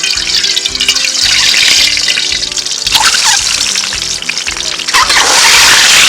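Water being poured and splashing in several loud gushes, each starting with a short rising gurgle, over background music.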